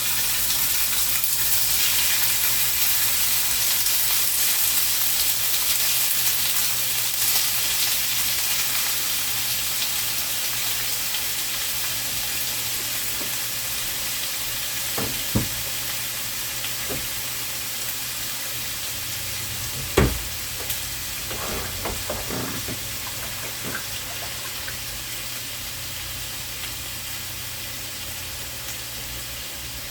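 Chicken pieces sizzling as they brown in hot oil in a frying pan, the sizzle slowly dying down. A few sharp knocks come about halfway through, the loudest about two-thirds in.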